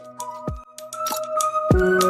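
Background music: sustained notes over a deep kick drum, with a fuller chord coming in shortly before the end.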